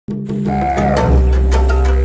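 Background music, with a deep bass note coming in about a second in.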